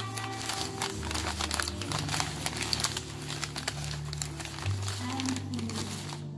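White paper wrapping crinkling and rustling as a wrapped sub sandwich is unfolded by hand, over background music with low held bass notes that change a few times.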